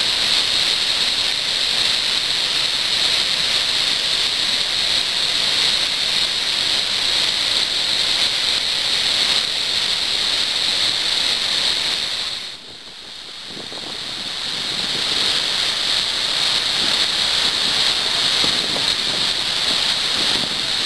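Flood water thundering out of the Wivenhoe Dam spillway gates: a loud, steady rush of churning water and spray. The noise dips briefly about twelve seconds in and builds back up.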